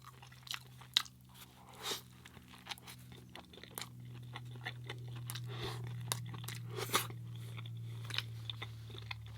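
Close-miked chewing and biting of a Beyond Meat burger patty with spaghetti sauce and cheddar, full of irregular mouth clicks and smacks. A steady low hum runs underneath and gets a little louder about four seconds in.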